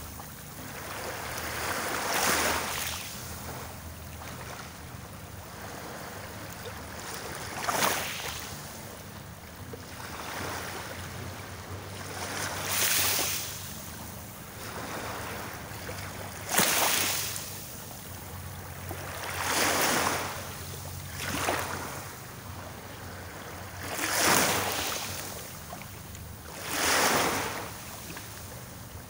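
Small waves washing onto the shore, each one swelling and fading every few seconds, a couple breaking with a sharper splash, over a low steady rumble.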